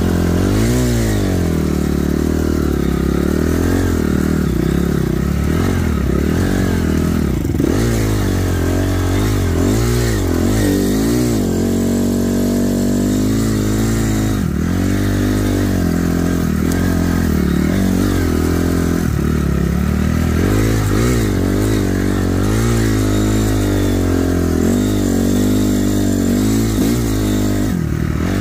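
Honda CRF250 dirt bike's single-cylinder four-stroke engine running under constantly changing throttle. Its pitch rises and falls over and over as it is ridden.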